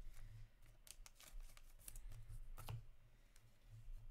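Trading cards being handled: slid and flipped against one another in the hands, a scatter of quick rustles and clicks, with a few low bumps.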